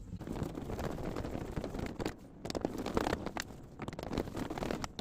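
Irregular scraping and crackling with many small clicks: hand work on a plastic heater-box cover as a screw is fitted into it.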